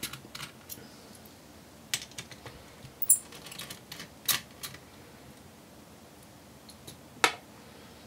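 Scattered small clicks and taps from a precision Phillips screwdriver working the tiny screws that hold a laptop's cooling fan in place, as the screws are undone and lifted out. The sharpest clicks come about three seconds in and again just after seven seconds.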